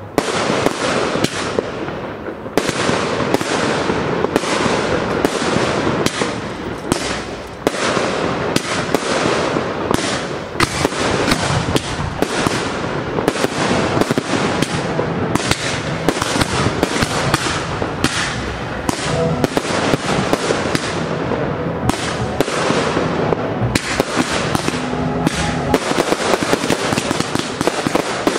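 Aerial fireworks going off in quick succession: a near-continuous barrage of bangs and crackling as shells burst overhead.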